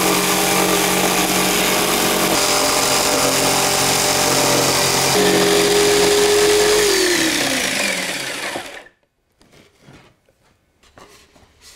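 Jigsaw cutting through a sheet of plywood, motor and blade running steadily. About seven seconds in the motor is switched off and winds down, falling in pitch until it stops about two seconds later, followed by a few faint handling knocks.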